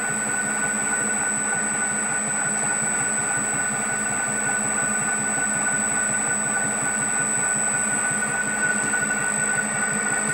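Motor-driven beeswax comb foundation roller mill running steadily, its gear drive and hexagon-embossed rollers turning as it cold-rolls a wax sheet: an even mechanical hum with a constant high whine.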